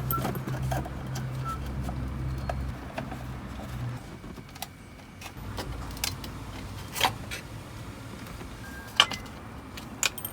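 Scattered clicks and light knocks of car interior trim being handled and taken off, the loudest about seven, nine and ten seconds in. Under them a low hum fades out after about four seconds.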